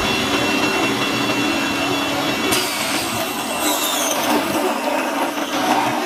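Small benchtop table saw running and ripping a thin strip of wood: a steady motor whine under the cutting noise. The cut grows louder and harsher about two and a half seconds in as the blade bites into the wood.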